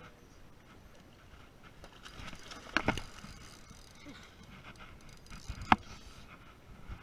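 Spinning reel being worked against a bent rod with a fish on the line, faint mechanical clicking. Two sharp knocks, one nearly three seconds in and a louder one near six seconds.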